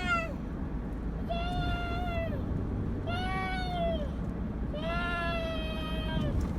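A young child making long, high, steady-pitched squealing cries, three of them about a second long each plus the tail of one at the very start, over the low rumble of the moving car.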